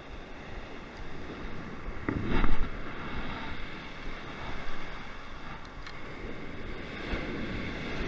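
Sea surf breaking and washing over a pebbly shore, with wind buffeting the microphone; one louder wave surges in about two seconds in.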